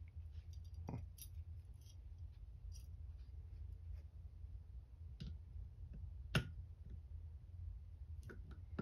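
Faint, scattered clicks and taps of a steel pistol frame and a Torx screwdriver being handled and set against each other, over a low steady hum. The sharpest click comes a little past the middle.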